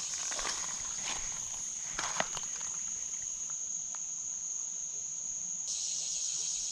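Steady high-pitched drone of insects, with a few faint clicks about two seconds in.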